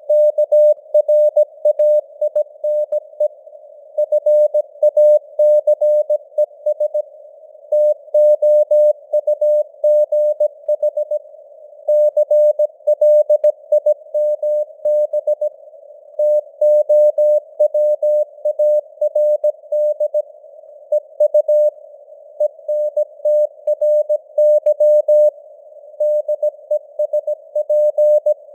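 Morse code (CW) at 17 words per minute: a single tone of about 600 Hz keyed on and off in dots and dashes. It sits in a narrow band of simulated radio hiss, like a CW signal heard through a receiver's filter.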